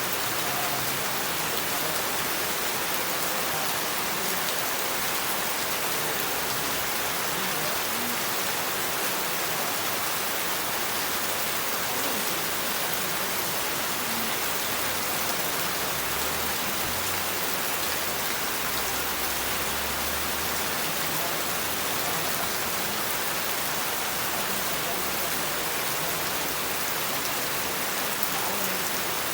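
Steady, heavy rain falling and pattering on surfaces.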